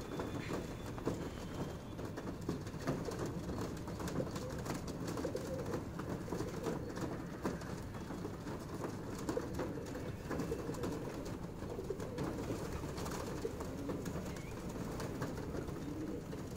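A flock of feral rock pigeons cooing continuously, many birds overlapping, with frequent short clicks through the cooing.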